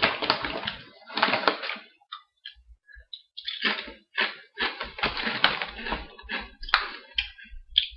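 Crunching of Doritos tortilla chips being chewed, in irregular crackly bursts with a short pause about two seconds in.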